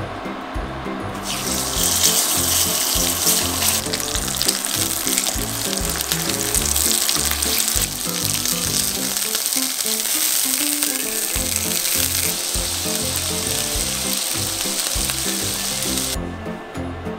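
Pork jowl pieces sizzling in hot oil in a frying pan, starting suddenly about a second in and cutting off shortly before the end, over background music with a steady beat.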